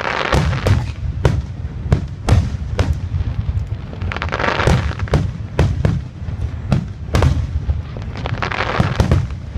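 Fireworks display: aerial shells banging in quick succession, about two bangs a second, with three swells of crackling, near the start, about four and a half seconds in, and near the end.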